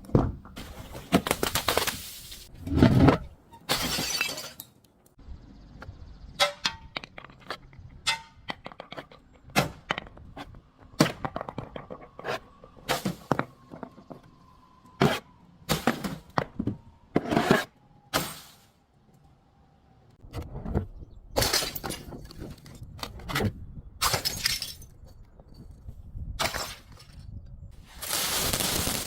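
Glass bottles being smashed and crushed in a long series of sharp breaking impacts, with small clinks of shards between them. About two-thirds of the way in there is a brief pause, then more breaking, with denser crunching near the end.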